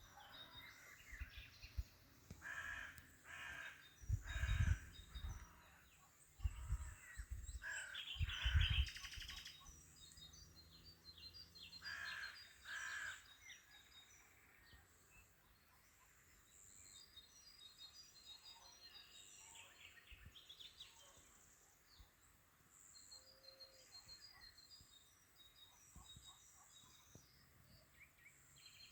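Birds calling outdoors: about seven loud, harsh cawing calls in the first half, over steady rapid high-pitched chirping and twittering from small birds that carries on to the end.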